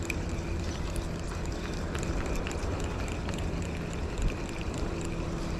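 Steady wind rumble on the microphone and water noise around a small open boat, with a faint low steady hum underneath.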